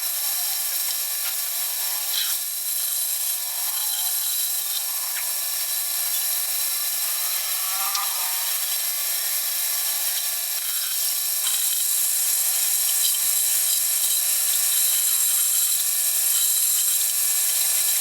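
A high-speed electric wood cutter running steadily as it cuts a design into wood: a steady high whine of several tones over a hiss, a little louder about two-thirds of the way in.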